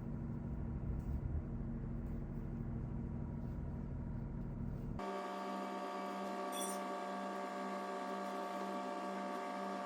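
Steady hum made of several even tones, with no speech. About five seconds in it changes abruptly to a thinner, higher hum without the low rumble.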